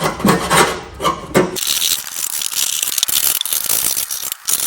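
A paint scraper dragged over the steel mower deck in a few quick strokes, flaking off loose paint; about a second and a half in the sound changes abruptly to a steady, harsh rasping hiss of metal being worked.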